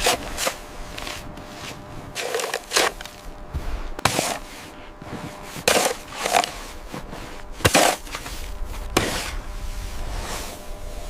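A series of short, sharp noises, about nine in all, unevenly spaced about a second apart, over a low background rumble.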